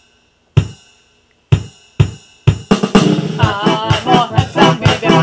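Drum hits about a second apart, each a low thud with a ringing snare-like top. Then, about two and a half seconds in, the full band comes in with busy drumming and a melody over it.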